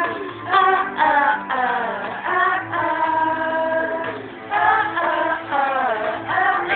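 A young man singing karaoke into a handheld microphone, holding long notes in phrases over a backing track.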